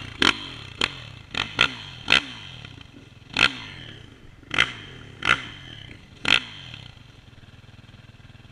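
Quad's engine running at low revs, with a dozen or so sharp, irregular clicks and knocks over it that stop about six and a half seconds in.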